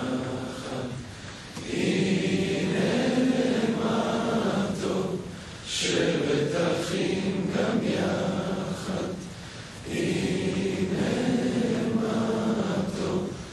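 A large group of men singing a song together, in long sustained phrases with a short break about every four seconds.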